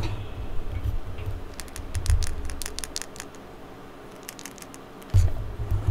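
Small plastic toy doll and its accessories handled close to the microphone: scattered light plastic clicks and taps, with low thumps from hands bumping near the mic at the start, about two seconds in, and again near the end.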